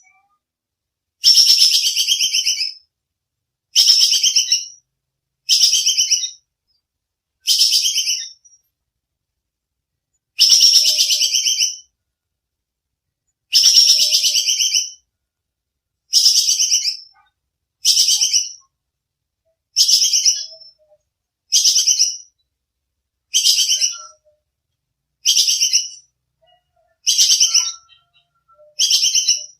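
Squirrel (tupai kekes) chattering: a rapid, rattling high-pitched call about a second long. It repeats over and over every two seconds or so with short silences between.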